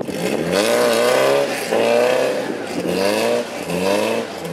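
Vintage trials car's engine revving hard in four rising-and-falling surges as its rear wheels spin for grip in deep mud.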